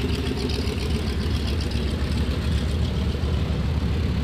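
Pratt & Whitney R-2800 radial engine of an FG-1D Corsair running steadily, a deep drone with a rapid fine flutter on top that fades a little through the second half.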